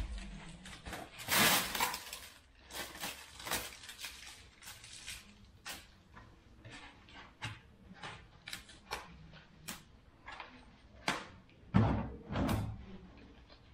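Foam sleeves and plastic wrapping being pulled off a new bicycle frame: a run of crinkling rustles and sharp snaps, with two dull knocks near the end as the frame is handled.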